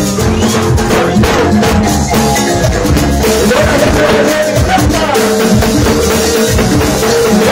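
Live band playing Latin dance music: drum kit and percussion keeping a steady beat under sustained melody and singing.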